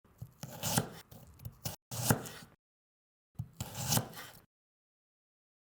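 Knife chopping vegetables on a cutting board, with repeated sharp cutting strokes. The sound comes in three short stretches, each ending abruptly in dead silence, and the last stops about halfway through.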